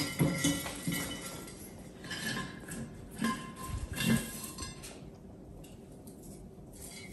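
Stems of cotton bolls and dried pampas grass knocking and clinking against clear glass vases as they are set in: a run of light knocks, some with a short glassy ring, over the first four and a half seconds, then quieter.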